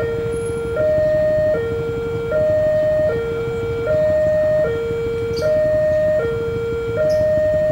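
Railway level-crossing warning siren sounding its two-tone alarm, a higher and a lower note alternating evenly about every three-quarters of a second, signalling an approaching train.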